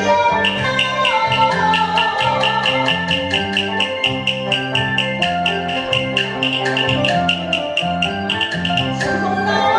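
Taiwanese opera instrumental accompaniment between sung lines: a traditional ensemble plays a melody over a steady bass line, kept to a fast, even clicking beat of about five strokes a second.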